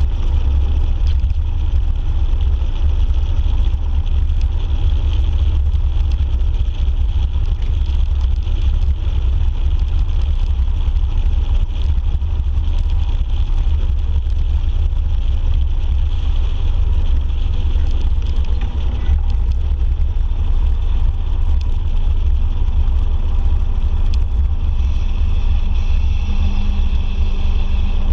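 Motorcycle cruising steadily on the open road: a loud, steady low wind rumble on the microphone over the engine's drone, with a clearer engine note coming through near the end.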